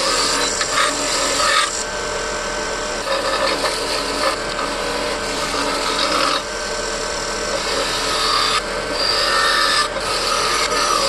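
Rusty steel pliers being abraded to strip the rust: a continuous rasping scrape that shifts in tone every second or two as the stroke or contact changes.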